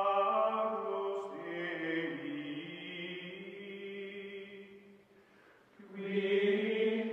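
Choir-like chanting music with long, held notes over a steady low drone. It fades away about five seconds in and swells back a second later.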